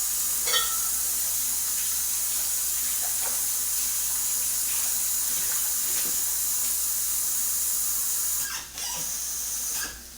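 Kitchen tap running steadily. It breaks off briefly about eight and a half seconds in, runs again, then stops just before the end, likely as water is drawn to add to a curry.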